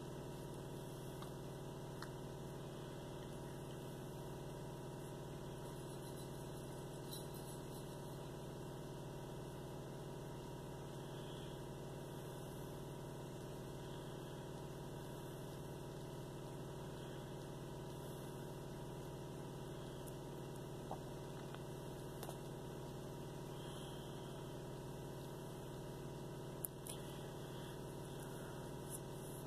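Cat purring steadily, a low continuous rumble that swells and eases with each breath, while an adult cat licks a kitten's head; a few faint licking clicks, one sharper click near the end.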